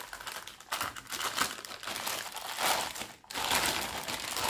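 Clear plastic packaging bag crinkling in irregular bursts as a stainless steel grinder jar wrapped in it is handled and pulled out, loudest in the second half.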